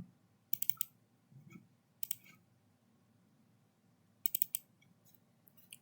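Quick clicks at a computer while a program is edited, in three short clusters: just after the start, about two seconds in, and a little past four seconds.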